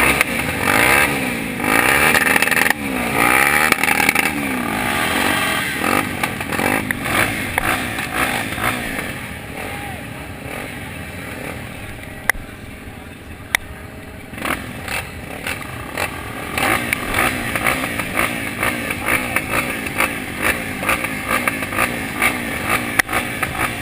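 Off-road motorcycle engines of 250 cc velocross racing bikes revving hard, pitch climbing and dropping again and again as they accelerate and shift through gears. The engines are loudest in the first several seconds, fade around the middle, where two sharp clicks stand out, and grow louder again near the end.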